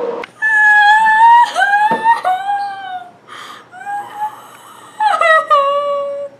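A boy crying hard: a series of long wailing cries, several sliding down in pitch at the end, with a gasping breath between them.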